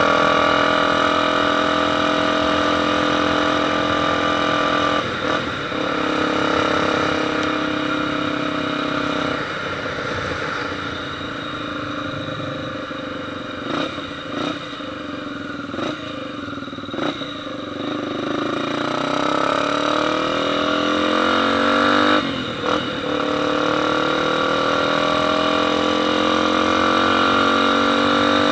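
Motorcycle engine running at high revs, dropping lower in the middle with a few sharp pops, then accelerating again with a rising pitch, broken by short dips that sound like gear changes.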